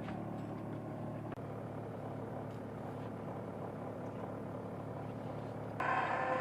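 A boat engine running steadily at an even pitch. Near the end the sound turns suddenly louder and brighter, with a higher steady whine on top.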